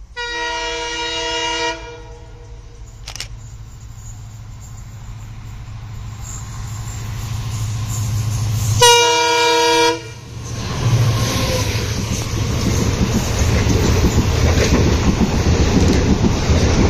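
EMD WDP-4D diesel locomotive sounding its horn twice as it approaches at speed, with the second blast louder and closer, over a low engine rumble that grows louder. After the locomotive passes, its coaches rattle by over the rail joints with a rising clickety-clack.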